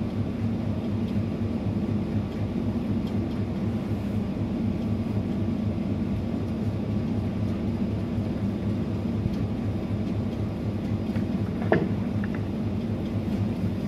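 Steady low mechanical hum of a running machine, with one sharp knock near the end.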